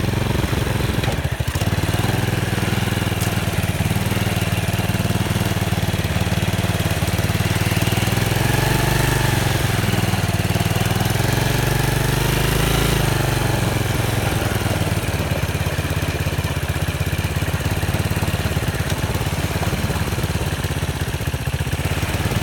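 ATV engine running steadily, its pitch rising and falling as the revs go up and back down about a third of the way through.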